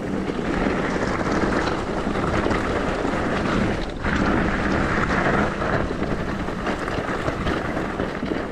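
Wind rushing over the microphone mixed with the running noise of a downhill e-bike on the move. The noise is steady, with a brief dip about four seconds in.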